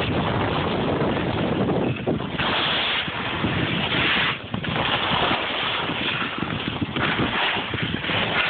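Skis scraping and hissing over spring snow during a downhill run, with wind rushing over the microphone. The hiss swells and fades every second or two as the turns go.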